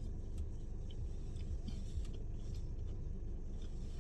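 A person chewing a bite of fried chicken tender, with faint small mouth clicks over a steady low background rumble.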